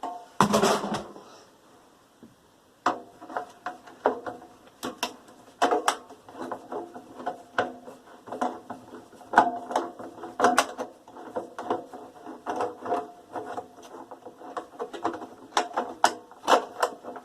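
Screwdriver working screws out of a scrap microwave's metal casing: a long run of irregular ratcheting clicks, after a single loud clatter of the casing about half a second in.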